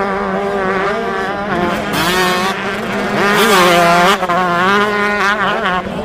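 Motocross bike engine running hard, its pitch repeatedly rising and falling as the throttle opens and closes.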